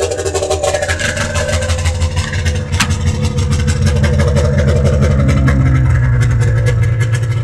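Snowmobile's two-cylinder two-stroke engine running steadily, its note rising slightly a little past the middle; it is firing on both cylinders after a fault that had it idling on only one.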